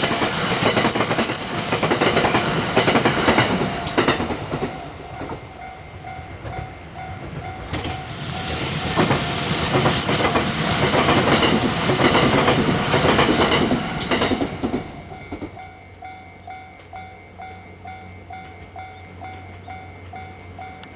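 Series 289 electric express train passing: wheels clattering on the rails with a high squealing whine, loud in two long stretches before dying away about fifteen seconds in. After it, a quieter steady high tone with a soft pulse about twice a second.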